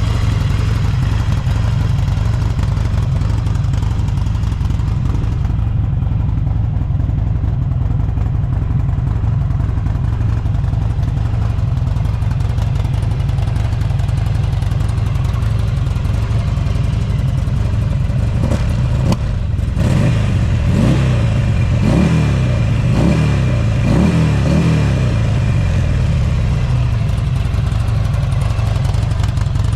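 Buell XB12SS Lightning's air-cooled V-twin idling steadily through a Strike Weapon aftermarket muffler, with a deep, loud exhaust note. A little over halfway through comes a run of five or six quick throttle blips, each rev rising and dropping back to idle. The engine runs with no abnormal noise.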